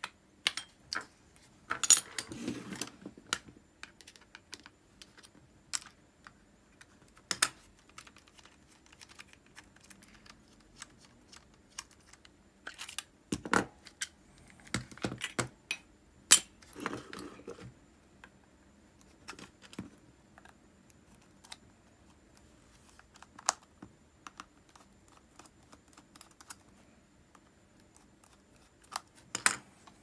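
Irregular clicks and clinks of small metal reel parts and tools being handled, as an Ambassadeur 2500C baitcasting reel is worked on by hand. The clicks come in a few louder clusters.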